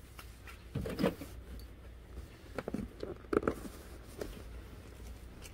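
Scattered rustling and light knocks of goods being shifted around inside a cardboard box, with packaging rubbing against the cardboard, the clearest about a second in and again around three seconds in.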